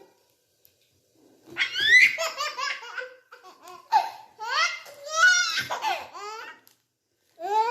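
A baby laughing in high-pitched bursts of quick repeated laughs, starting about a second and a half in. The laughter breaks off briefly near the end, then starts again.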